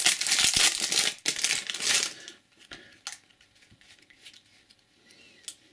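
Plastic wrapper around a pack of trading cards crinkling loudly as it is pulled open, for about two seconds. Then it goes quiet, with a few faint clicks as the cards are handled.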